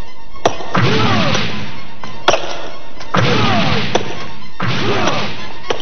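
Digging sound effects in a mine: sharp pick strikes on rock, each followed by a spill of crumbling rubble, repeating about every second and a half, over background music.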